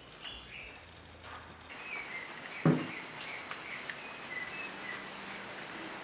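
Rural outdoor ambience: a steady high-pitched insect drone with short bird chirps, and a single sharp thump a little under three seconds in.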